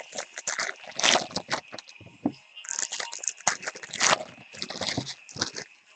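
Trading-card packs and cards being handled: irregular crinkling, rustling and sliding from the wrappers being opened and the cards being shuffled through.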